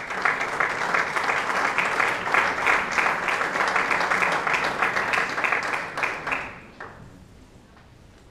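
Audience applauding with dense, fast clapping that fades away about six to seven seconds in.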